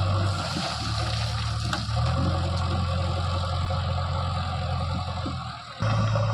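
Heavy diesel engine running steadily under a rushing noise, its hum dropping in pitch about half a second in and rising again about two seconds in, then changing abruptly just before the end.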